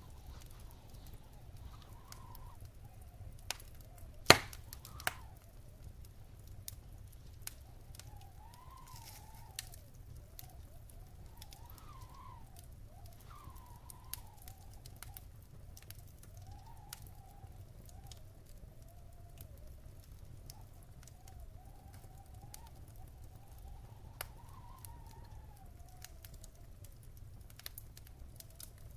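Wood fire in a fireplace crackling, with scattered pops and one loud sharp pop about four seconds in, over a low steady rumble and a faint wavering whistle.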